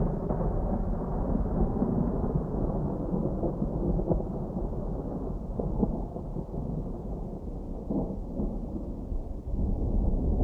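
Distant thunder rumbling low and continuously, easing off through the middle and swelling again near the end.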